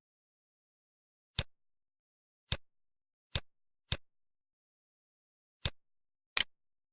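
Computer mouse clicking: six single clicks at irregular intervals, with dead silence between them.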